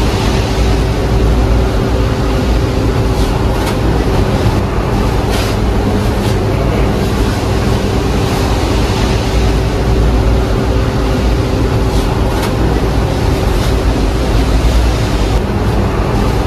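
A loud, steady mechanical noise with a low rumble and a constant hum, with a few faint clicks along the way.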